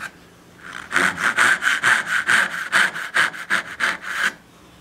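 Dovetail saw cutting a dovetail into a board by hand: a fast, even run of back-and-forth strokes starts about a second in and stops just after four seconds.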